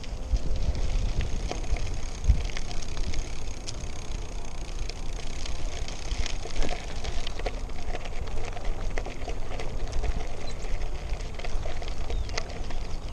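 Trek Domane AL 2 aluminium road bike rolling over a cracked trail surface: steady tyre noise with many small clicks and rattles from the bike, under a low rumble of wind on the microphone.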